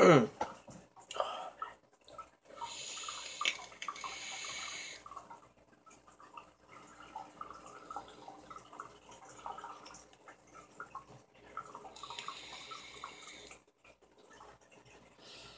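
Vaping on a Horizon Tech Arctic sub-ohm tank: an airy rush of breath about three seconds in and again near twelve seconds, with faint crackling and sizzling from the coil in between.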